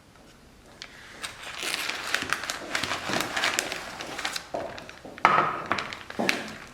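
Plastic food-storage bag crinkling and rustling as it is handled, followed by a few knocks near the end.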